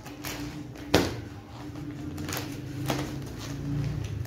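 Plastic-wrapped clothing packs being handled and one lifted from a pile, the plastic rustling, with a sharp knock about a second in and a couple of lighter clicks later.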